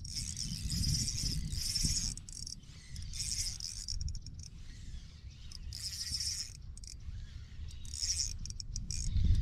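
A spinning reel being cranked in stretches of about a second, several times, as a hooked fish is reeled in on light tackle, over a low steady rumble.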